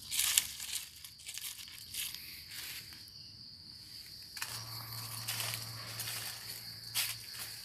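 Dry leaf litter rustling and crunching in several short bursts as the ground around a snare is handled and walked over. A steady high-pitched drone of insects runs underneath.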